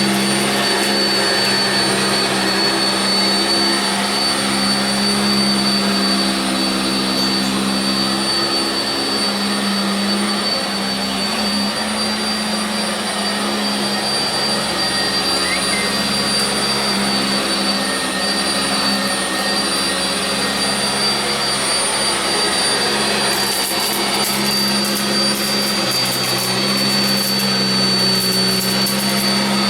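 Sanitaire SC679j commercial upright vacuum running on carpet: a steady motor hum with a thin high whine over it, the low hum shifting a little as it works.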